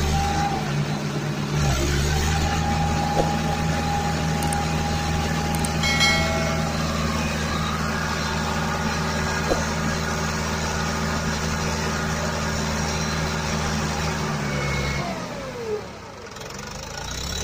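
Tractor engine running at a steady idle, a low even drone. It drops away about fifteen seconds in and comes back near the end.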